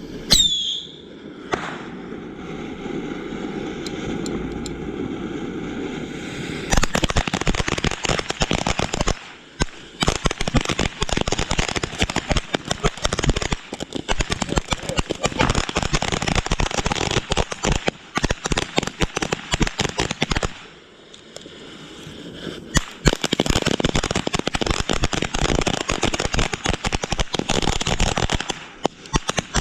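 Consumer fireworks going off close by: a short falling whistle at the start, then a few seconds of steady hissing, then long runs of rapid crackling pops. The crackling breaks off briefly about twenty seconds in and then starts again.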